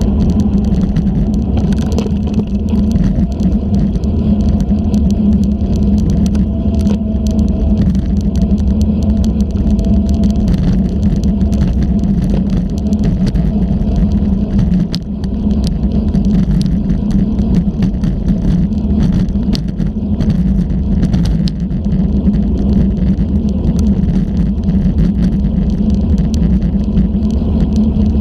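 Wind and road rumble on a bicycle-mounted GoPro while riding on a paved path, sped up: a steady loud rumble peppered with frequent small knocks and rattles from bumps.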